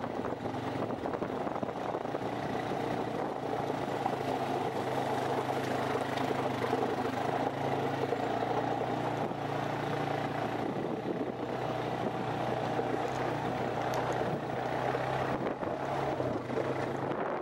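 ATV (quad) engine running at a steady pitch as the quad is ridden along a dirt trail.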